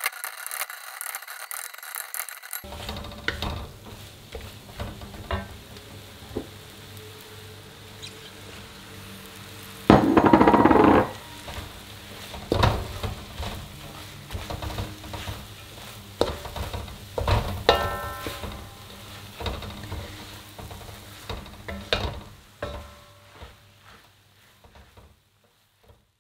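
Wooden spatula scraping and knocking in an aluminium wok while a curry stir-fry sizzles, with a louder burst about ten seconds in. The sound fades out near the end.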